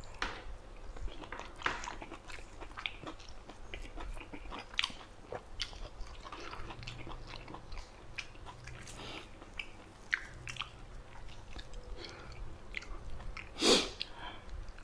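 Close-miked chewing of a mouthful of rice and eel curry: irregular soft wet mouth clicks and smacks, with one louder, longer noise a little before the end.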